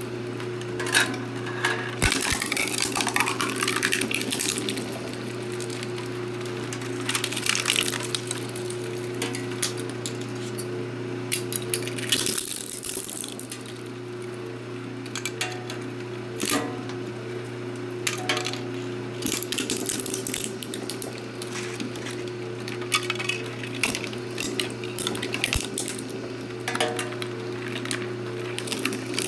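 Electric twin-shaft shredder running with a steady motor hum while its cutters crack and crunch 3D-printed plastic pieces, in irregular clusters of sharp snaps and clatter.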